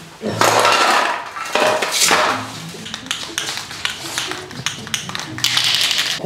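Metal aerosol spray-paint cans clattering against each other as an armful is set down, then a spray can shaken with its mixing ball rattling in short ticks, and a brief hiss near the end.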